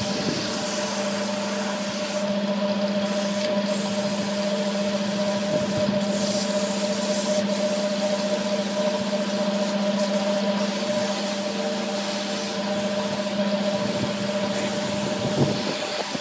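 Wood lathe running steadily: a constant motor hum under a steady hiss of the spinning wood being worked.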